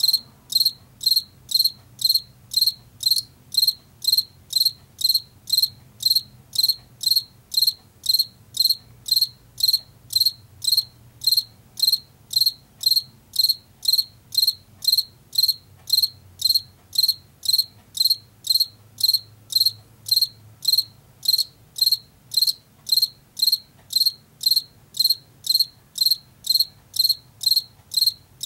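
Male field cricket singing its calling song: short, high-pitched chirps repeated very regularly at about two a second, made by rubbing its front wings together.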